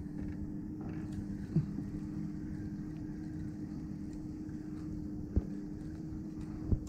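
Steady low hum with a constant tone, broken by three sharp knocks about a second and a half, five and a half and nearly seven seconds in, aboard a small fishing boat.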